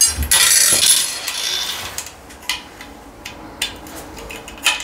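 Aluminium wall profile of a folding bath screen being handled and fitted against tiled wall and bath rim: a rustling scrape for about two seconds, then a run of light metallic clicks and taps.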